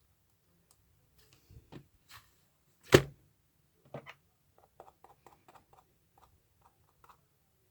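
Scattered clicks and knocks of objects being handled, with one sharp, loud knock about three seconds in, followed by a run of quick light taps and clicks.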